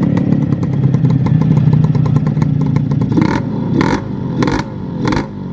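Suzuki Satria Hiu's single-cylinder two-stroke engine idling steadily, running smooth again after a rebuild; in the second half come four short, brighter bursts.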